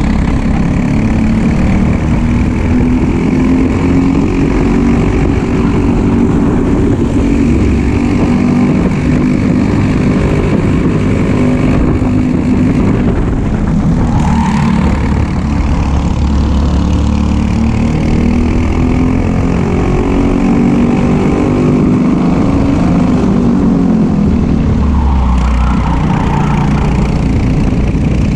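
Briggs & Stratton LO206 four-stroke single-cylinder kart engines running flat out, the engine note rising along the straights and dropping briefly twice, around the middle and near the end, as the throttle comes off for corners.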